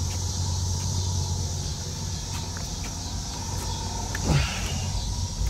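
1964 Chevrolet Impala's engine idling steadily in neutral, a quiet, even purr through a stock exhaust. About four seconds in there is a brief creak and thump as the trunk lid is opened.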